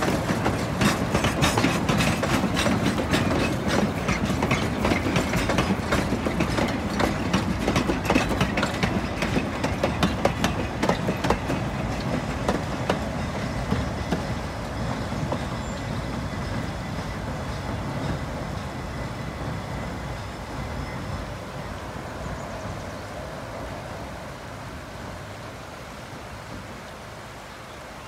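Narrow-gauge passenger cars and caboose rolling past, their wheels clicking rapidly over the rail joints, then fading steadily as the train moves away.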